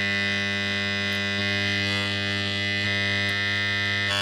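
Microwave-oven transformer, rewound with a thick three-turn secondary and a steel plate on its core, running on mains power with a steady, loud electrical hum; it is vibrating strongly.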